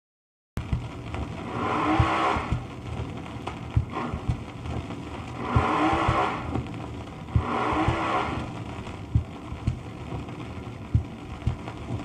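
Drag racing car engine sounds played back from a damaged cardboard record, starting about half a second in, with three loud surges of engine noise around 2, 6 and 8 seconds in. Frequent clicks and crackle from the worn record and a steady low hum run underneath.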